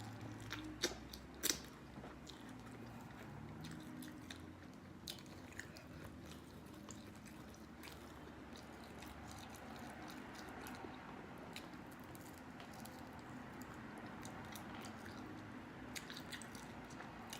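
A person chewing food, with a few sharp bite clicks, two of them in the first couple of seconds, over a faint steady low hum.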